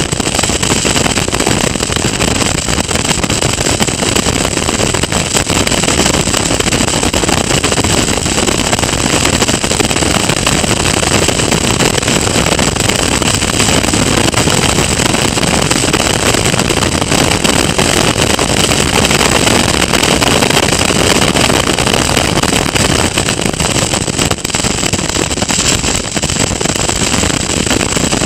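Caterham Seven race car's engine running hard at racing speed, heard from an onboard camera with wind rushing over the open car, making a loud, steady roar of engine and air with no letup.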